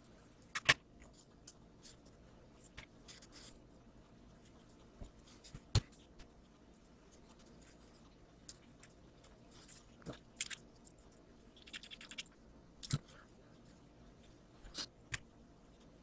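Small plastic model-kit parts and a hex driver being handled and fitted together: scattered light clicks and taps, with sharper knocks about half a second in, near six seconds and near thirteen seconds.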